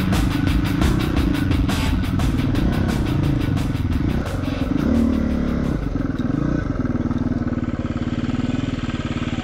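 Dirt bike engine revving up and down as it is ridden over a rough trail, then settling to a steady idle about seven seconds in as the bike stops.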